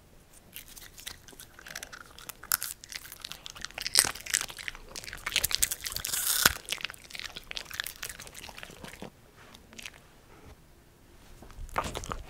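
Italian greyhounds crunching and chewing popcorn taken from a hand, close to the microphone: a dense run of crisp crunches that is loudest midway and thins out, then one short last burst near the end.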